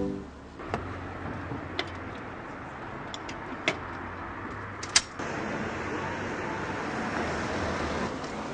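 Street background noise with traffic, broken by a few sharp clicks; the loudest click comes about five seconds in, and the background grows louder just after it.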